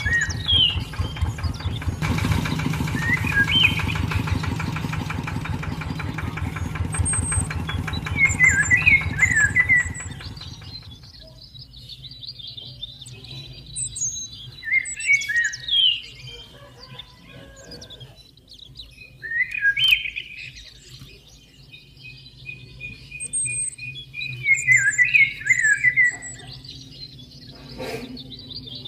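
The small motor and belt drive of a model tractor run with a rapid, even pulsing beat, then stop about ten seconds in. Songbirds chirp throughout and carry on alone after the motor stops. There is a single knock near the end.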